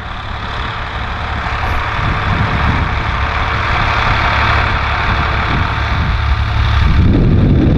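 Vintage tractor engine running steadily, growing louder as the tractor draws nearer.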